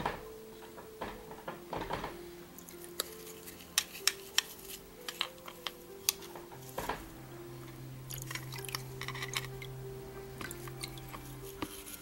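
Light clicks and scrapes of a metal tool against the aluminium end cover of an electric fan motor as dirt is cleaned out of the bushing housing. Soft background music with steady held notes runs underneath.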